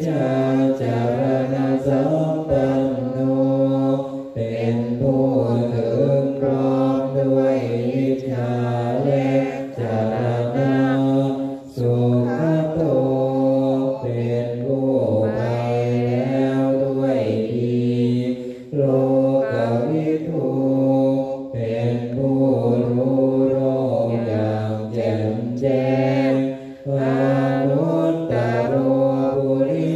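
A group of Thai Buddhist monks chanting evening prayers in Pali together, in a low unison drone on a nearly steady pitch. The chant runs on continuously, with short pauses for breath every few seconds.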